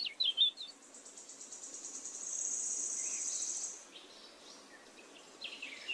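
Faint high-pitched, rapidly pulsed trill of an insect for about three seconds, starting about a second in, with a few short bird chirps at the start and near the end.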